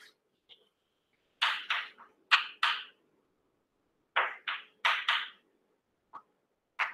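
Chalk scratching on a blackboard as symbols are written: about ten short scratchy strokes in two clusters, the first about a second and a half in and the second about four seconds in, with a single light tap near the end.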